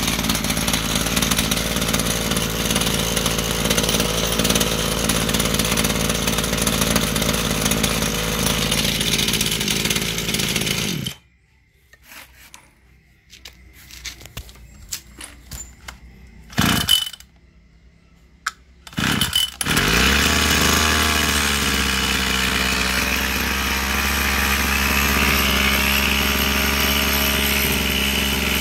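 Mitsubishi TL26 26cc two-stroke brush cutter engine running at low throttle, not revved hard. It cuts off suddenly about eleven seconds in. After a few seconds of handling clicks and two short loud bursts as it is started, an engine catches about twenty seconds in and runs steadily again.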